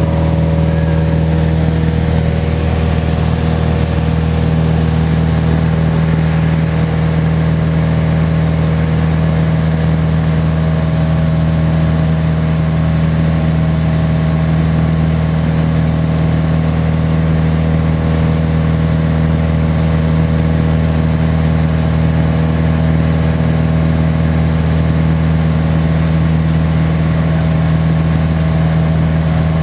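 Piper Cherokee Six's six-cylinder Lycoming engine and propeller droning steadily at climb power after takeoff, heard from inside the cabin.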